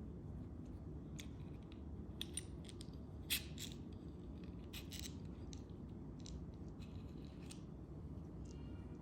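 Small metallic clicks and taps from the metal parts of a Nodal Ninja panoramic head and phone holder being handled and taken apart, with one sharper click about three seconds in. A low steady hum sits underneath.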